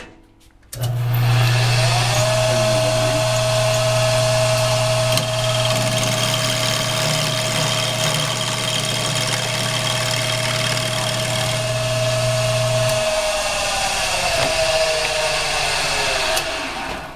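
Machinist lathe's electric motor starting about a second in and running with a steady hum and whine. It is switched off near the end and winds down.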